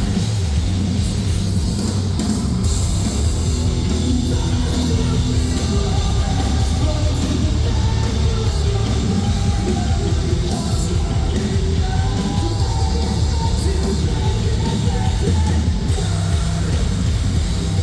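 Live metalcore band playing loud: heavy guitars and drum kit, with vocals over them.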